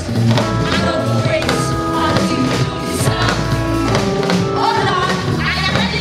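Live gospel choir of women singing together over a band with drum kit and electric guitar.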